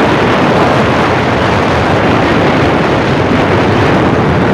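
Loud, steady roar of a vehicle driving over a rough dirt road, with wind buffeting the microphone.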